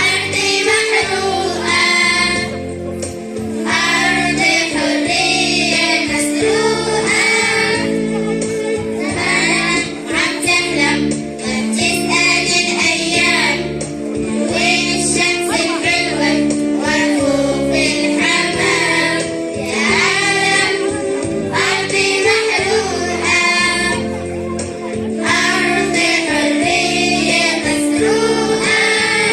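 Children singing an Arabic nasheed together over a musical backing with a steady beat.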